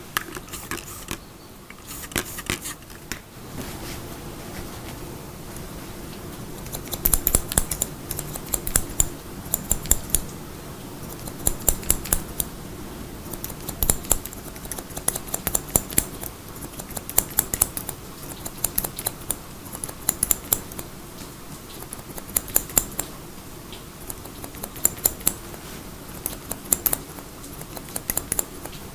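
Hair-cutting scissors snipping in quick runs of sharp clicks, one run every second or two, over a steady background hiss.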